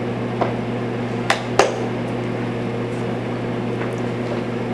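Steady machine hum in a small tiled room, with a few short knocks. The two loudest knocks come close together about a second and a half in.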